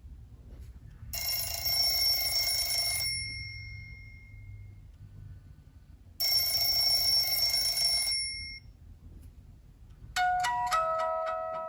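Nokia C7-00 ringtone playing: two rings of about two seconds each, about five seconds apart. Near the end the next ringtone begins, a melody of clear stepping notes.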